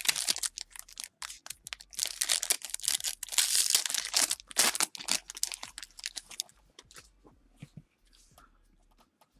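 A 2017 Panini Elite Draft Picks football card pack being torn open, its wrapper crackling and crinkling in loud bursts for about the first five seconds. After that come fainter, scattered clicks and rustles.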